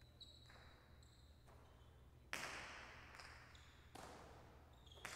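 Jai alai pelota striking the fronton walls during a rally: three sharp cracks, each ringing out in a long hall echo, spaced about a second and a half apart from a little past two seconds in. Faint high squeaks come in the first second and a half.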